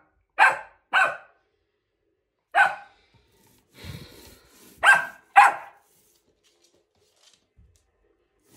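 American bully puppy barking: five short barks, a pair at the start, one at about two and a half seconds, and another pair about five seconds in.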